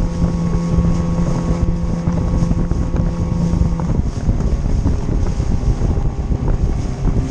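Boat's outboard motor running steadily under way, with wind buffeting the microphone; about four seconds in the engine note drops to a lower pitch.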